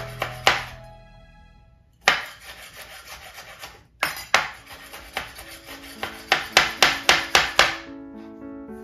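Chef's knife chopping tomatoes on a cutting board: sharp knocks of the blade on the board, a few spaced single cuts, then a quick run of about nine chops near the end.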